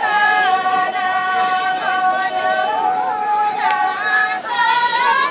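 Group of women singing a Santali folk dance song in unison: high held notes that slide from one pitch to the next.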